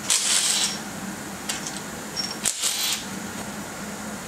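Small-block Chevy cylinder head being tugged loose by hand from tight dowel pins: two short scraping bursts about two seconds apart, with a few light clicks between them.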